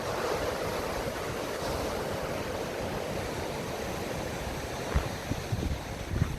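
Ocean surf washing steadily, with wind buffeting the microphone in low thumps from about five seconds in.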